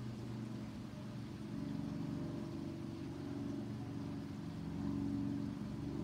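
A motor running with a steady low hum, swelling a little about two seconds in and again about five seconds in.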